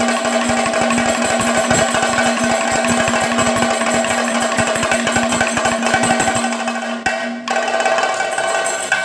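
Kathakali melappadam percussion: chenda drums beaten with sticks and maddalam drums struck by hand in fast, dense rolls, over a steady ringing tone. About six and a half seconds in, the deep drum strokes drop out and the lighter, higher strokes carry on.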